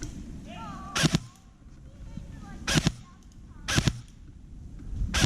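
Airsoft rifle shots fired in quick pairs: four double cracks, each pair about a second or more apart.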